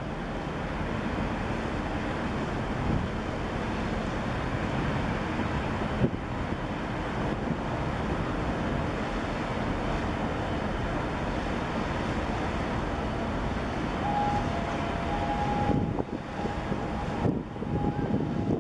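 Steady rushing noise of wind on the microphone, over the low rumble of a container ship and its tug under way in the harbour. A faint broken high tone is heard near the end.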